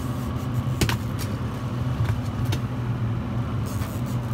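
Boat engine running steadily at trolling speed, a low even drone. A sharp click a little under a second in and a couple of fainter ticks later, from gear being handled on deck.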